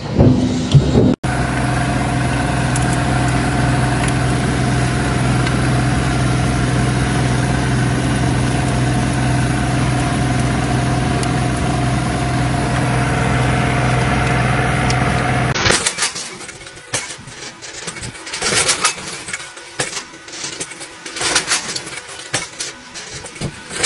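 A brief loud burst, then a tractor engine running steadily while it draws a plastic-mulch laying implement; the engine sound stops abruptly about two thirds of the way in. Irregular metallic clicking and rattling follows.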